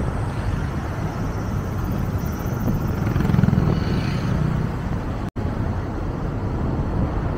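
Steady vehicle and road noise, a low rumble with no clear events, broken by a split-second dropout about five seconds in.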